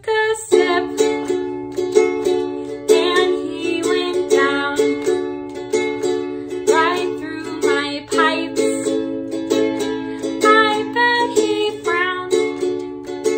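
Instrumental music: a string instrument strummed in steady rhythmic chords, a quick run of strokes with the chord tones ringing between them.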